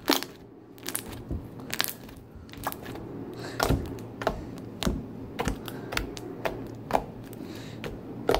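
Thick, glossy white cereal milk slime being poked and pressed with fingertips, giving irregular sharp clicks and pops, roughly two a second.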